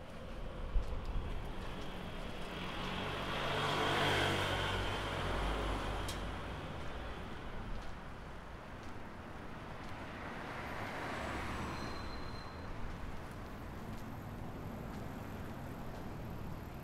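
Road traffic passing on a city street: one vehicle swells up and fades away about four seconds in, with a low engine drone under it, and a softer pass follows around ten seconds.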